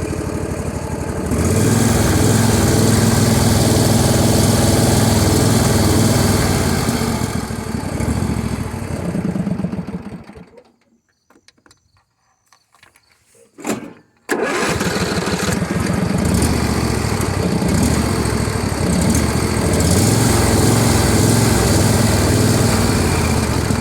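John Deere L118 lawn tractor engine running, picking up speed about a second in, then slowing and dying out after about ten seconds. After a few seconds of quiet there is a short crank, and the engine catches at once and runs steadily again.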